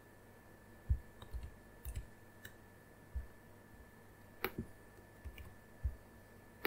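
Scattered clicks of a computer mouse and keyboard, roughly one every half second to second, the loudest about four and a half seconds in, over a faint steady high tone.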